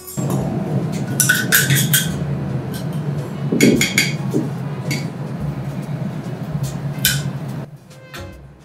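Metal cooking utensils and a small saucepan clinking and clattering at a steel teppanyaki griddle, with several sharp clinks scattered through, over a steady low hum.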